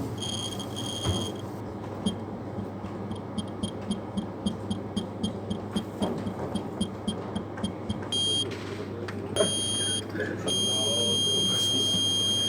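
Buzzer on a breadboard sound-detection alarm circuit sounding a high-pitched beep, marking that the circuit's microphone has sensed sound. It gives two short beeps, then a run of quick chirps about three a second, then longer tones that turn into one continuous tone near the end, over a steady low hum.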